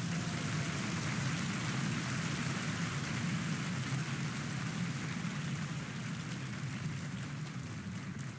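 Steady sound of rain falling: a recorded rain sound effect.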